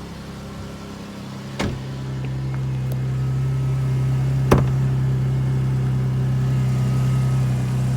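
Pontiac G6 engine idling steadily, growing louder over the first few seconds, with two sharp clicks about one and a half and four and a half seconds in, from the hood being released and opened.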